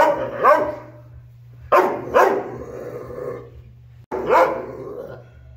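A dog barking in a kennel, five barks in all: two right at the start, two more about two seconds in, and a last one about four seconds in. The barking is the behaviour problem being shown.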